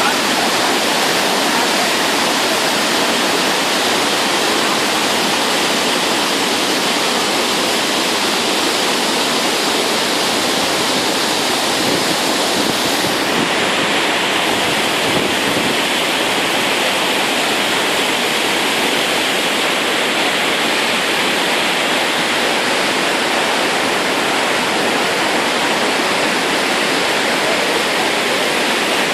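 Waterfall: a steady, loud rush of falling and splashing water, its hiss a little softer from about halfway through.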